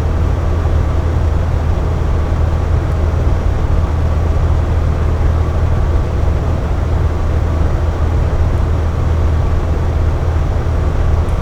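Air conditioner running with a steady low hum and an even rush of airflow, unchanging throughout.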